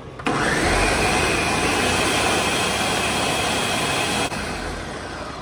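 Countertop blender running at full speed, puréeing tomatillos, serrano chiles and cilantro into green salsa. It switches on about a quarter second in with a quick rising whine, runs steadily for about four seconds, then is switched off and spins down.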